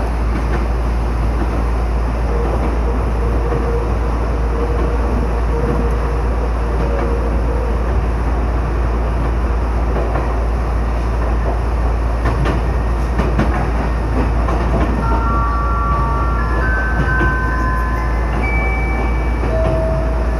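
Chichibu Railway electric train running on the line, a steady rumble of wheels on track. In the last few seconds a short run of tones steps between different pitches.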